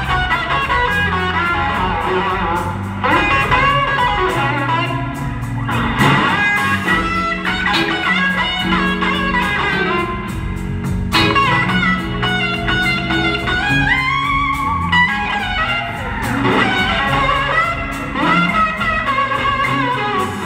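A live blues band playing a slow blues, with an electric guitar playing bending lead lines over the rhythm section.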